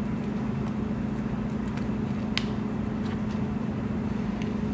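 A steady low mechanical hum with a stack of even tones, unchanging throughout, and one sharp click about two and a half seconds in.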